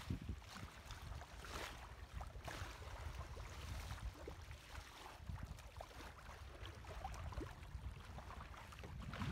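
Wind gusting on the microphone aboard a sailboat under sail, with faint irregular splashing of water against the hull.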